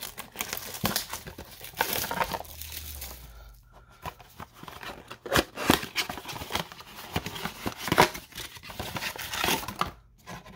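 Baseball-card blaster box being torn open: plastic wrap crinkling and cardboard and wrappers tearing in irregular rustles and rips. There is a brief lull about a third of the way in, and the sound stops just before the end.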